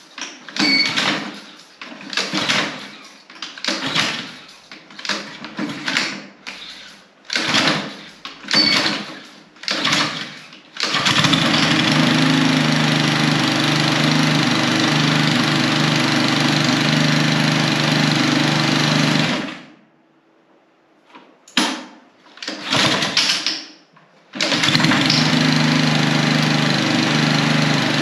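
Husqvarna HU800AWD walk-behind mower's small four-stroke engine being pull-started after three years of storage on old ethanol-free gas: about nine recoil-starter pulls, each with a short burst of cranking, before it catches about 11 seconds in and runs steadily. It dies about 19 seconds in, takes three more pulls, and catches again and runs.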